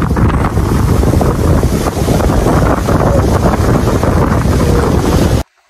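Strong wind buffeting the microphone over sea surf, a loud rushing rumble that cuts off suddenly near the end.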